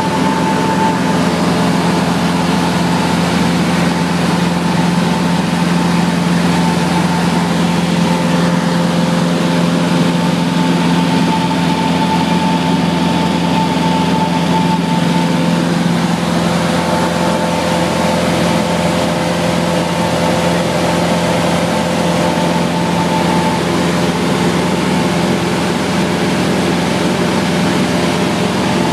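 Single-engine Cessna's piston engine and propeller droning steadily in cruise, heard inside the cabin over a wash of wind and cabin noise. The pitch holds constant, and a higher whine fades in and out.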